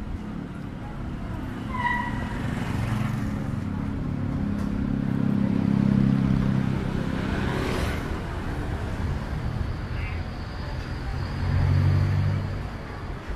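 Street traffic passing close by: vehicle engines swell and fade, loudest about six seconds in and again near the end. A short beep sounds about two seconds in.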